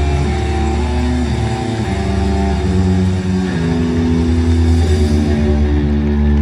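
Live rock band played through an arena PA, holding sustained chords that change every second or so over a strong low rumble.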